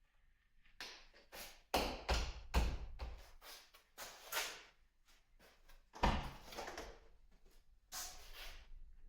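A run of irregular knocks, clicks and clatters, a dozen or more, loudest in the first half and again about six seconds in.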